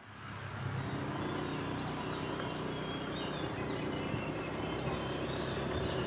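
Motorcycle engine running steadily while the bike rides along a road, fading up over the first second.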